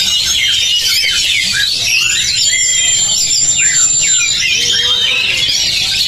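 Many caged oriental magpie-robins singing at once at a songbird contest: a dense chorus of overlapping whistled phrases, with one long thin high whistle held for about two seconds from about two seconds in.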